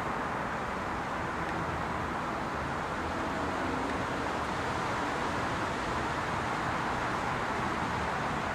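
Steady, even rushing background noise with no distinct clicks or knocks; the hand-turned model engine is not heard firing.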